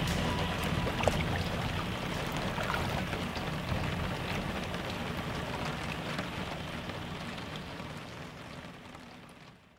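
Water sound, a steady hiss of rain or rushing water with scattered drops, slowly fading out to silence near the end.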